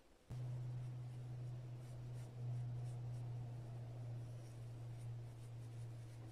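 A small hand tool scraping and carving packed foundry sand in a mold half, beside the sprue hole, over a steady low hum that starts abruptly a moment in.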